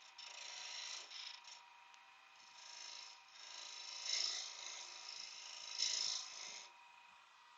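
Turning tool taking light cuts across the face of a spalted beech blank spinning on a wood lathe: about four short passes, the strongest about four and six seconds in, over the lathe's steady faint whine.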